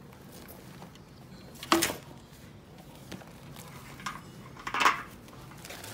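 Plastic water bottle being put into a canvas tote bag: two short knocks with rustling, one about two seconds in and another about five seconds in.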